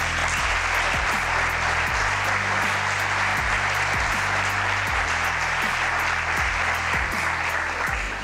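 Audience applauding at the end of a speech, over background music with a steady beat. The clapping fades just before the end.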